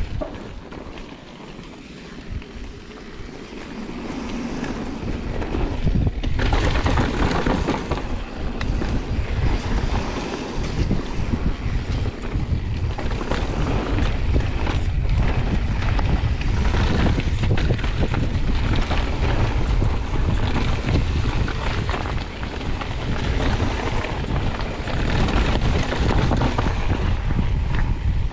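Wind buffeting an action camera's microphone over the rumble and rattle of a mountain bike rolling down a rocky dirt trail, with frequent knocks as the bike hits rocks and roots. Quieter for the first few seconds, then loud and rough from about six seconds in as the bike picks up speed.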